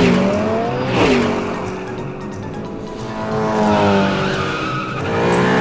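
Cartoon race-car sound effects: engines revving up and down in pitch, with tyre squeals and swishes as the cars speed off, over background music.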